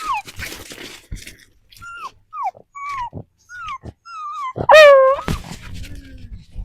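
Beagle whining: about six short high whines, each falling in pitch, then a louder, longer cry with a bending pitch about two-thirds of the way in.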